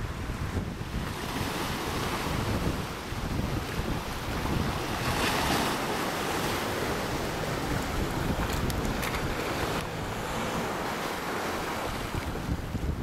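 Small ocean waves washing and breaking against shoreline boulders, the wash swelling about five seconds in, with wind rumbling on the microphone.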